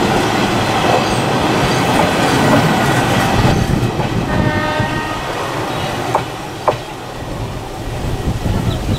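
Tungipara Express passenger coaches rolling past close by, their wheels rumbling and clicking over the rail joints. A train horn sounds for about two seconds in the middle. Two sharp knocks come near the end as the last coach goes by, and then the rumble drops away.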